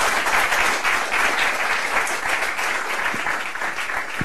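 Audience applauding: dense clapping of many hands, thinning a little toward the end.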